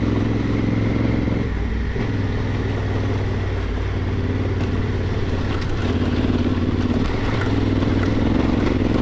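Adventure motorcycle engine running at a steady trail pace on a gravel road, its note dipping briefly twice as the throttle eases. A few light clicks come through around the middle.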